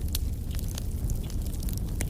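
Wood fire burning: a steady low rumble with frequent sharp crackles and pops from the burning wood.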